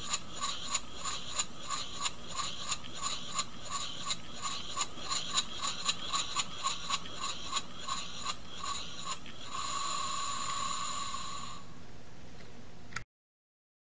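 Scratch-built double-acting horizontal model steam engine running, its exhaust chuffing in a steady beat of about three a second that quickens to about four a second in the middle. The beat stops after about nine seconds and gives way to a steady hiss of escaping supply, which weakens slightly before cutting off.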